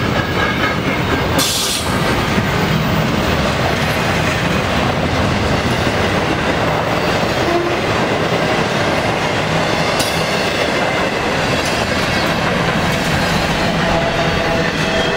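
Double-stack intermodal freight cars of a Norfolk Southern train rolling past at speed: a steady, loud rolling noise of steel wheels on the rail with clatter from the cars.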